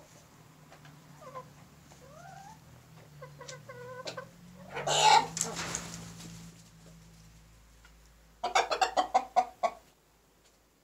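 Chickens in a shed: hens give soft short clucks and rising calls, then a loud rustling flurry about halfway through, and near the end a fast run of about ten loud sharp sounds from the flock around the black Ayam Cemani rooster.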